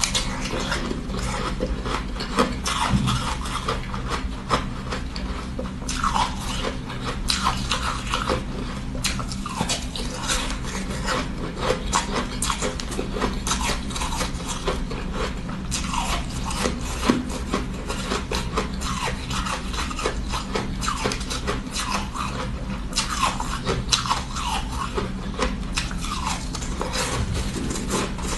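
Close-up crunching and chewing of chunks of crumbly frozen ice, a dense stream of small crackles and bites, over a steady low hum.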